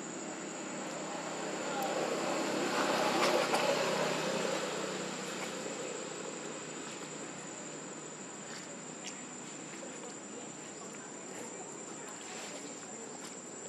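Steady high-pitched insect drone, with a passing vehicle rising and fading in the first several seconds, loudest about three seconds in.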